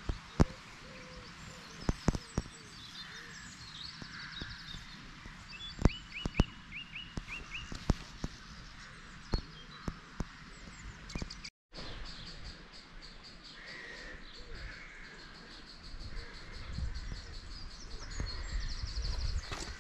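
Several small songbirds singing and chirping, broken by sharp clicks every so often. The sound drops out for a moment just past halfway, and a low rumble comes in near the end.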